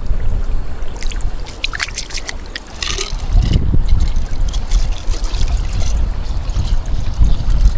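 Forest stream water running, with a heavy, uneven low rumble. A few sharp clicks and a short falling whistle come about two to three and a half seconds in.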